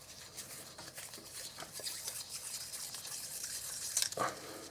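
Faint scratchy rubbing with small scattered clicks: small lens parts being handled and fitted together by hand.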